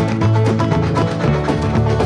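Background music: upbeat plucked-guitar music with a quick, steady rhythm.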